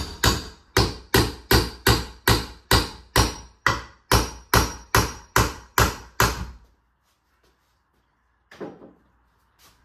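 Hammer striking a wooden board overhead in a fast, even series of about two and a half blows a second, knocking the board loose at one end. The blows stop about six seconds in, and one softer knock follows near the end.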